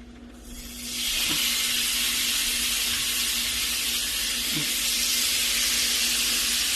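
Marinated chicken pieces sizzling on a hot grill. It is a steady hiss that swells up about a second in as the chicken goes on, then holds.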